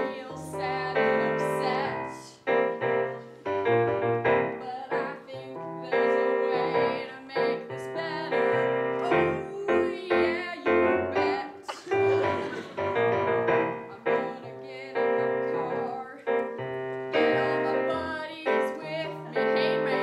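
A woman singing an improvised song to keyboard accompaniment: sung phrases over piano chords and a bass line that changes every second or two.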